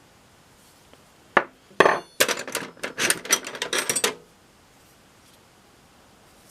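Metal hand tools clinking and clattering against each other in a toolbox as they are rummaged through: one knock, then about two seconds of quick, ringing metal clinks that stop abruptly.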